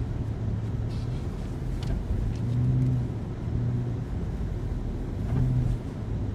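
Car driving: a steady low rumble of engine and road noise, with a low engine hum that swells a few times.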